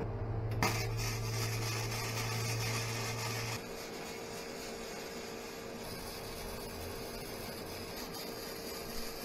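Electric arc welding on a steel trailer frame: a steady crackle and hiss of the arc. A low hum underlies the first three and a half seconds, then drops out.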